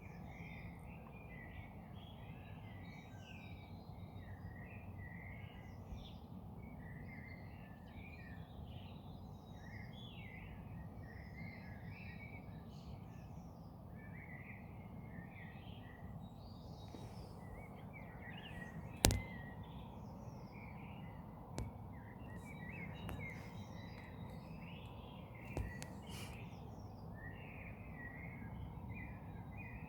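Early-morning dawn chorus of several garden songbirds, many chirps and song phrases overlapping without pause over a steady low background rumble. A single sharp click about two-thirds of the way through is the loudest sound.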